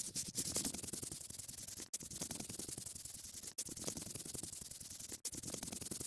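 Paintbrush-stroking sound effect: a steady scrubbing, rubbing hiss that repeats as a loop, with short breaks about every second and a half.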